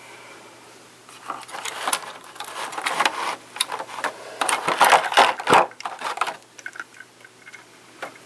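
Toy packaging being handled and opened: an irregular run of rustling, crackling and scraping for about five seconds, then a few lighter handling noises.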